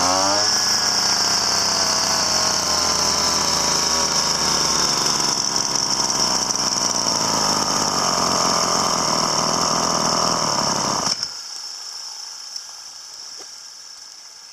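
A small motor-driven machine running on a test run after being taken apart and cleaned, with a steady high hiss and a whine that slowly drops in pitch. It stops abruptly about eleven seconds in, leaving a quieter, fading tail.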